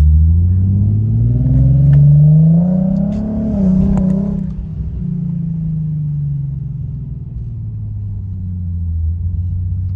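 Nissan 370Z's 3.7-litre V6 accelerating, its pitch climbing for about three and a half seconds, then easing off and settling to a steady cruise. The exhaust leak has just been repaired.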